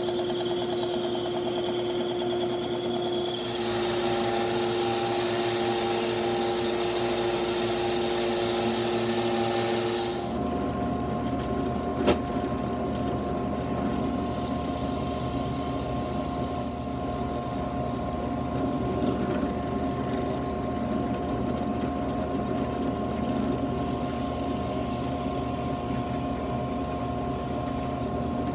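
A benchtop power saw running and cutting a small piece of wood, its cutting noise starting a few seconds in. About ten seconds in it gives way to a drill press running steadily and boring holes into small wooden blocks, with one sharp click shortly after.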